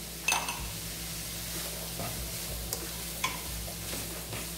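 Diced vegetables (carrot, peas, corn, red pepper) sizzling steadily in a hot aluminium pan, with a few sharp knocks and scrapes of a plastic spoon against the pan as they are stirred, one a moment in and two more past the two-and-a-half-second mark.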